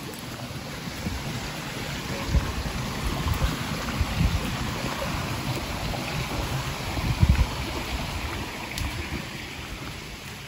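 Walking along a dirt and gravel bush track: a steady rushing hiss, with irregular low thuds of wind buffeting the microphone.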